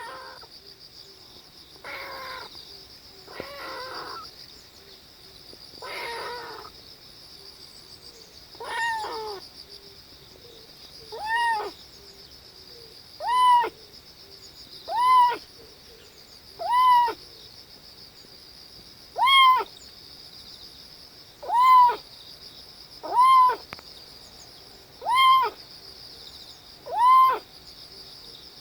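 Kitten giving short, strained cries about every two seconds while pooping, each cry rising and falling in pitch. The first few are rough and breathy; the later ones are clearer and louder.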